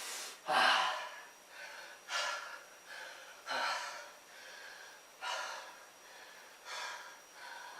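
A man breathing hard from the effort of push-ups, with heavy gasping breaths about every one and a half seconds.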